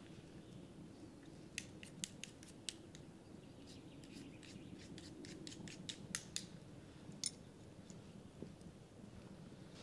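A run of about twenty light, sharp clicks from camp gear being handled while a tent is taken down. It starts after about a second and a half and stops a couple of seconds before the end.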